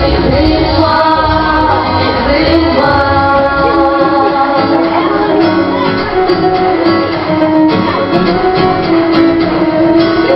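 A song: singing voices over instrumental backing music, with long held notes.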